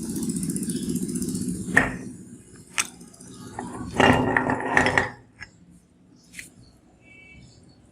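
Meat grinder working, a steady low grinding with sharp clicks. A denser noisy burst comes about four seconds in, and the grinding stops about five seconds in, leaving only faint ticks.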